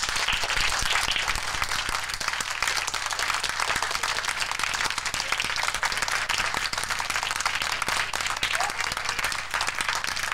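Audience applauding: the clapping of many hands, holding steady.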